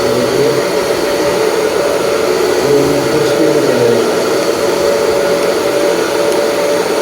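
Wahl Super Dry hair dryer running steadily: an even rush of blown air with a steady motor whine.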